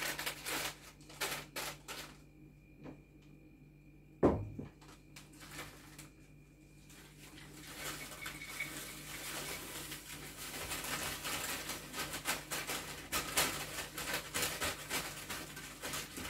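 Paper bag rustling, then dried chamomile flowers poured from the bag into a large glass jar: a steady rustling hiss with many small ticks, starting about seven seconds in. A single thump comes about four seconds in.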